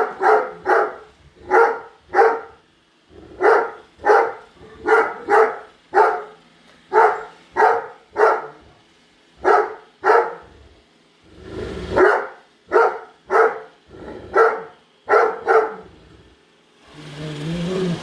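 Great Dane barking over and over at a running robot vacuum, the barks often in quick pairs, one to two a second. The barking stops near the end and a steady whirring hum takes over.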